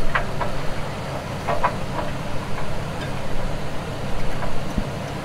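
A 4x4's engine idling steadily while the winch line is rigged at its front bumper, with a few faint short clicks over the top.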